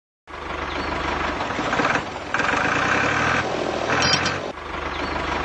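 Small motor of a DIY miniature tractor running with a steady mechanical drone, which starts just after a brief silence and grows louder and softer a few times.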